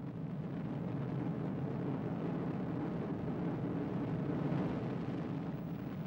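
Aircraft engines droning steadily as a formation of fighter planes flies past, swelling a little in the middle and easing off near the end.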